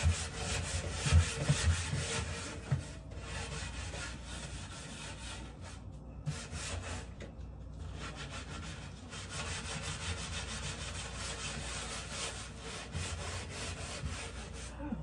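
Sponge scrubbing a wooden kitchen cabinet door in quick, rapid strokes to clean off grease, pausing briefly a few times. A few low thuds come in the first two seconds.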